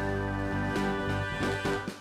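Background music, steady and instrumental.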